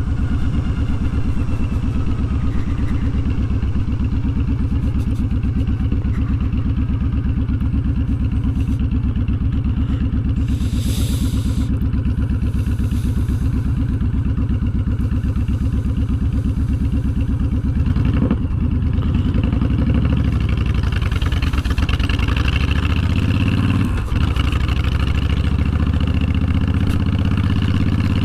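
Honda VTX1300's V-twin engine running steadily while the motorcycle is ridden. From about 18 seconds in, the engine note rises and falls several times through throttle and speed changes.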